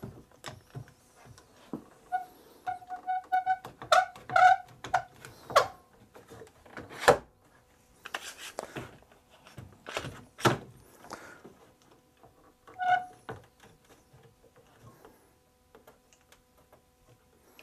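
A one-handed bar clamp being set on a piece of wooden trim and squeezed tight: a run of irregular clicks and knocks, with short squeaks in two spells.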